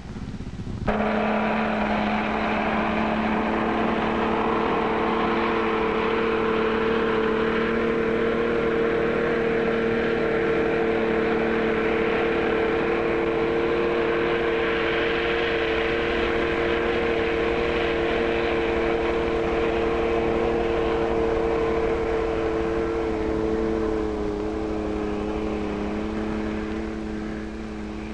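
Motorboat engine running in a steady drone that holds one pitch. It starts about a second in, then wavers slightly lower and fades near the end.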